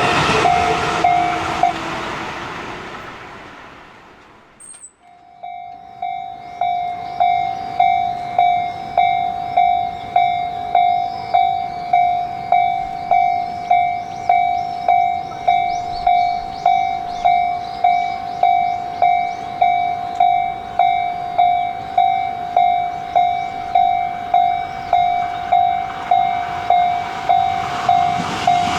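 Japanese railroad crossing: a passing train's rumble fades away over the first few seconds, then the crossing's warning bell starts up and rings the steady "kan-kan" strikes, about three every two seconds, signalling that a train is approaching.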